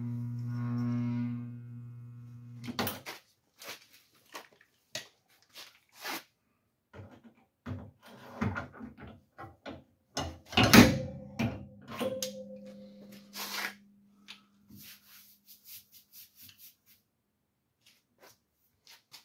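Dent-pulling work on a pickup's sheet-metal box side, with pins being worked to draw the dent out. A steady hum lasts about three seconds, then come scattered metallic clicks and knocks. One loud bang about ten seconds in is followed by a ringing tone that fades over a few seconds.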